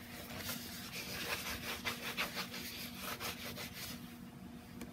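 A baby wipe rubbing over the canvas of a vintage Louis Vuitton Toiletry 26 bag, in repeated short wiping strokes that die away about four seconds in.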